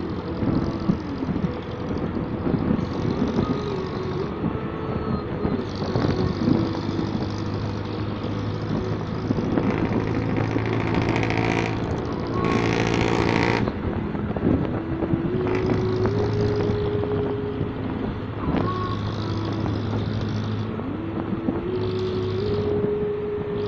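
Motorcycle engine running under way with steady road noise, its pitch rising and falling as the bike speeds up and eases off. A brief, louder rush of noise comes about halfway through.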